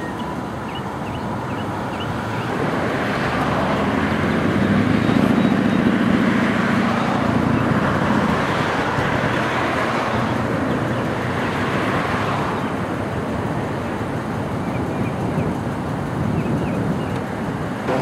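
Road traffic: cars driving past close by. The engine and tyre noise swells to a peak about five seconds in, with a low engine hum under it, and eases off after about twelve seconds.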